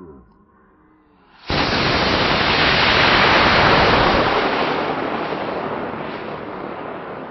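Cesaroni G79 Smokey Sam model rocket motor igniting about a second and a half in: a sudden loud rushing roar that slowly fades over the next several seconds as the rocket climbs away.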